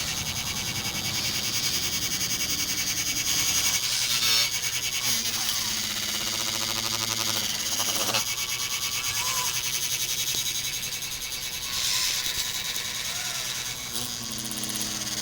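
Small electric motors and gearboxes of radio-controlled model construction machines running, a steady high whine and whir with a low hum beneath, and a pitched motor note that rises in for a few seconds in the middle and again near the end.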